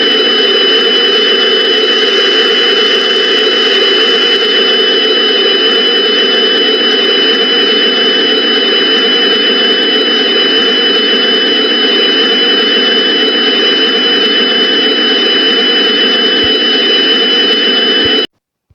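Loud droning background noise track for Emergency Alert System (EAS) videos: a steady rushing hiss with two steady high whistling tones over it. It cuts off abruptly near the end.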